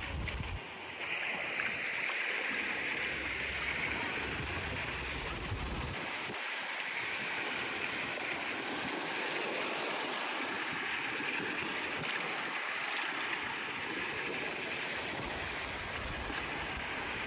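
Beach ambience: small waves washing on a sandy shore as a steady hiss, with wind buffeting the microphone in low gusts, strongest in the first six seconds and again near the end.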